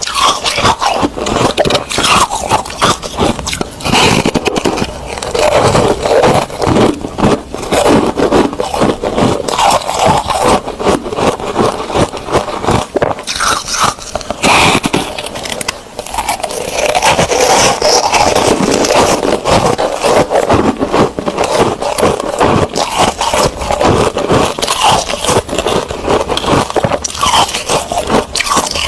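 Close-miked biting and chewing of foam ice (airy, porous frozen ice): a dense run of crunches and crackles, with a brief lull about fifteen seconds in.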